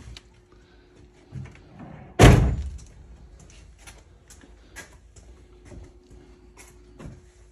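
A car door shutting once with a loud thunk about two seconds in, followed by faint clicks of handling.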